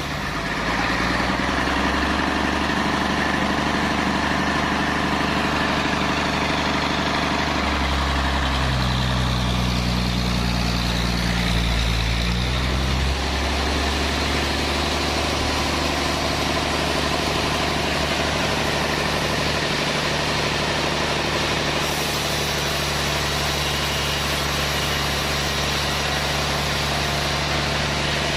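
Sawmill machinery running: a steady engine drone that changes pitch between about eight and thirteen seconds in, then settles back to an even hum.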